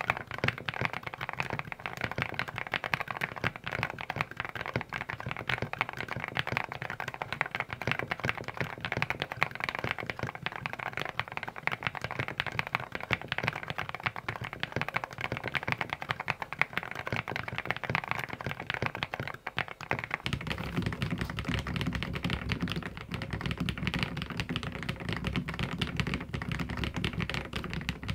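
Fast, continuous typing on a compact purple mechanical keyboard, a dense stream of key clicks. About twenty seconds in it changes to typing on an Aula F87 tenkeyless mechanical keyboard, which sounds deeper.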